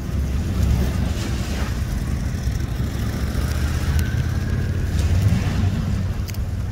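An engine idling steadily with a low rumble, mixed with wind buffeting the microphone.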